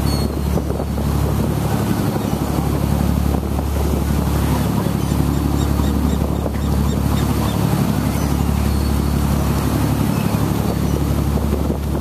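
Fishing boat's engine running steadily under way, with the wake churning behind the boat and wind buffeting the microphone.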